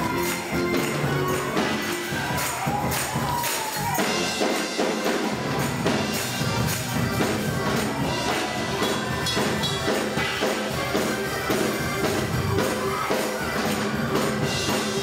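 Live gospel music from a church choir's band, with percussion keeping a steady, driving beat.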